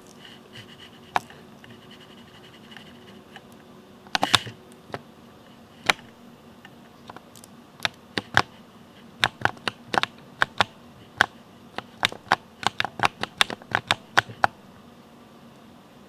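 Ducky mechanical keyboard with Cherry MX Speed linear switches being typed on: a few scattered keystrokes, a quick flurry about four seconds in, then steady typing from about eight to fourteen seconds before it stops.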